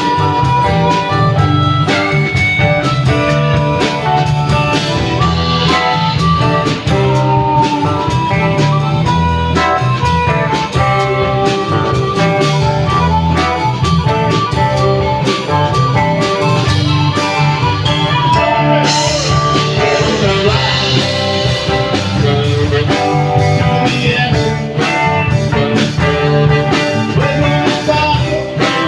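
Live band playing a blues number, with drums, bass and guitar.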